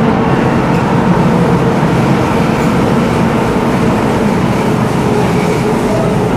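Electric metro train running through a tunnel, heard from inside the carriage: a steady, even rumble of wheels and motors.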